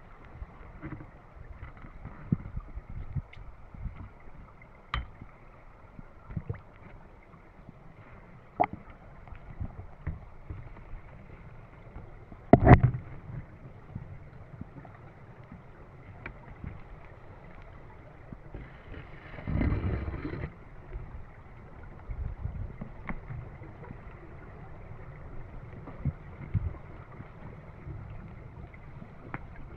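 Muffled underwater ambience picked up by a DJI Action 2 action camera held under water, with scattered small clicks and knocks. A louder knock comes about twelve seconds in, and a short rush of noise about twenty seconds in.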